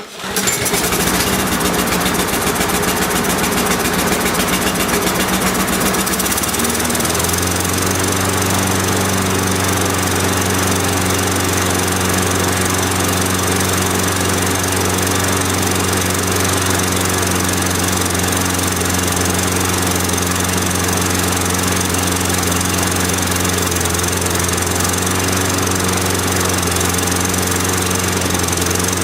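Briggs & Stratton Quantum single-cylinder four-stroke engine on a push lawnmower catching at once from a cold pull start and running. For about the first seven seconds it runs unsteadily at a lower speed, which the owner puts down to a choke issue at the start, then it picks up and settles to a steady, even running speed.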